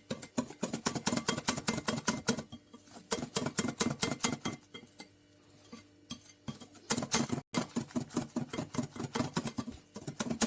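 A hand whisk clattering against a mixing bowl while stirring flour into cake batter, in quick runs of clicks broken by two short pauses.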